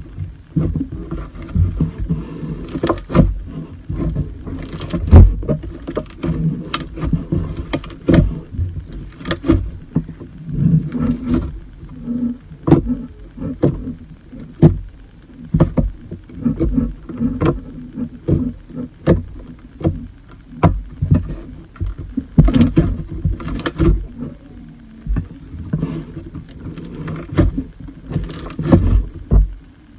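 Slime being squeezed and worked by hand: an irregular run of wet clicks, pops and soft thumps.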